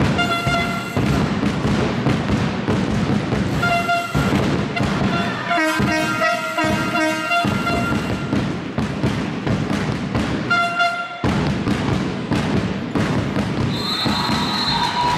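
Indoor handball match: the ball bounces and thuds on the court while a horn sounds in short blasts several times, once running through a few changing notes. A high whistle comes in near the end.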